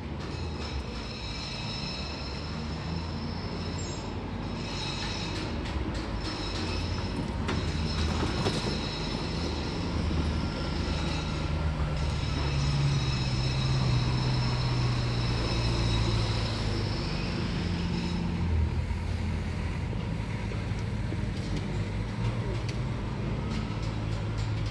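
Street noise dominated by a steady low engine drone with a high whine held above it, growing somewhat louder through the middle.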